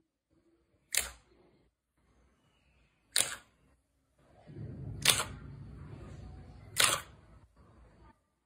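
Hand pressing and squeezing a thick slab of soft slime, giving four sharp pops about two seconds apart. A low squelching sets in about halfway through and runs under the last pops as the slime is worked and stretched.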